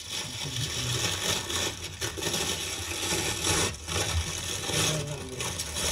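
Crumpled aluminium foil crinkling and rustling as hands peel back its layers in a steady run of crackles.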